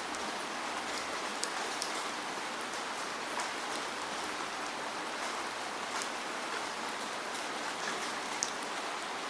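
Steady falling rain: an even hiss of rainfall with scattered sharp drip ticks of individual drops landing close by.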